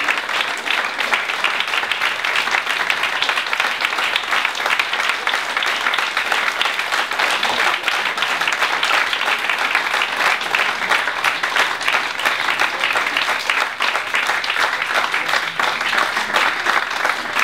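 Audience applauding: many people clapping continuously, with no let-up.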